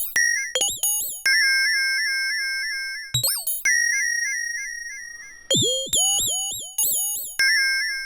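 Eurorack modular synthesizer playing chirp-like electronic notes. Each note opens with a quick pitch swoop, then settles and fades out. The notes come in an uneven rhythm of short and long ones, as the step sequencer's voltage varies the envelope fall time.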